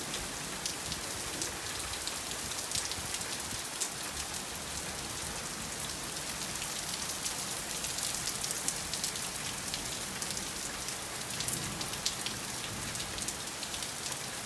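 Heavy thunderstorm downpour falling steadily, with many sharp ticks of drops striking close by.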